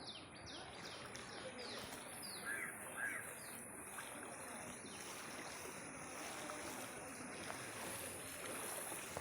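Steady rushing of floodwater, with a bird giving a quick run of high, falling chirps over the first few seconds and a thin, steady high whine throughout.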